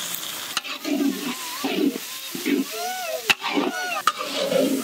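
A long-handled metal spatula stirring and scraping food frying in a large iron karahi, in repeated strokes under a sizzle. There is one sharp knock of metal on the pan about three seconds in.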